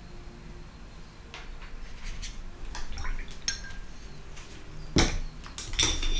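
Paintbrush tapping and clinking against a watercolour palette while picking up and mixing paint: a few light clicks at first, then louder, quicker clinks in the last second or so.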